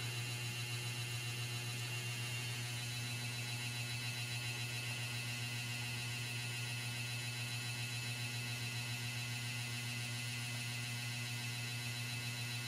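Steady low electrical hum with faint, steady high whines above it, unchanging throughout.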